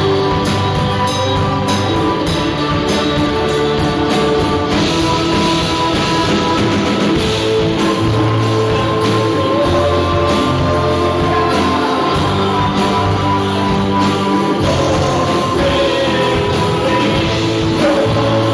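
Rock band playing an original song: electric guitars, bass, keyboard and drums together, with sustained melodic lines over a steady low end.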